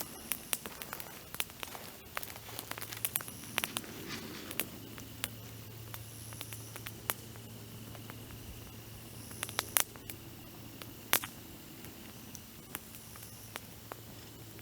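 Dry branches crackling in a campfire: irregular sharp pops and snaps, some clustered, a few louder ones.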